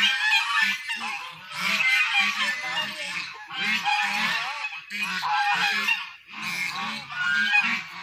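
Many birds calling over and over, their calls overlapping with only brief lulls.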